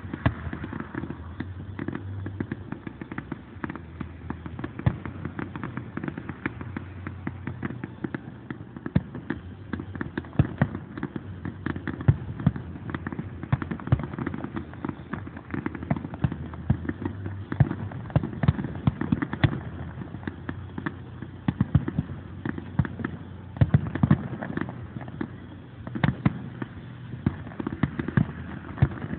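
Aerial firework shells bursting in a continuous barrage of sharp bangs and crackles, several a second.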